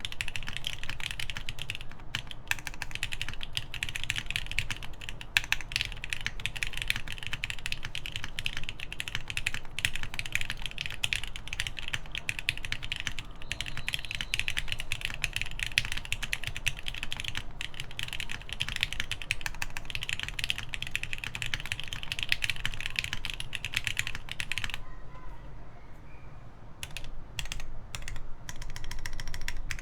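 Continuous fast typing on a mechanical keyboard with lubed Gateron Ink linear switches, GMK keycaps and an FR4 half plate, a dense stream of keystrokes. The typing stops for about two seconds near the end, then resumes.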